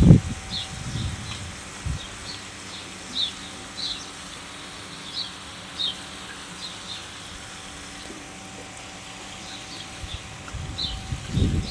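Small birds chirping: a string of short, high chirps at irregular intervals over faint outdoor background, with a low rumble of wind on the microphone at the very start and again near the end.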